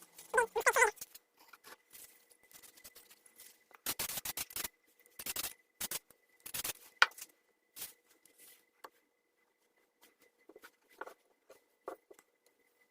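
Small handling sounds of a super glue repair on wood: a brief squeak near the start, a few short hissing bursts around the middle, sharp clicks, and faint squeaks toward the end.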